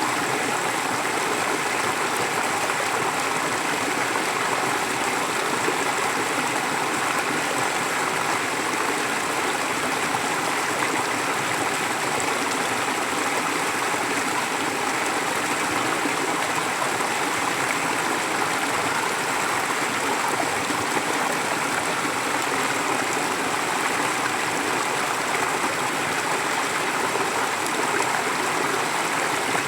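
A forest stream flowing steadily over rocks: an even, unbroken rush of water with light gurgling.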